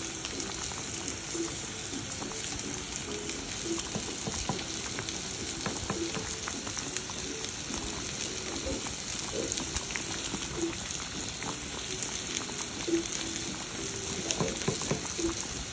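Rice with zucchini bubbling and sizzling in green sauce in a frying pan over a gas burner, with small pops and crackles, while a spatula stirs through it.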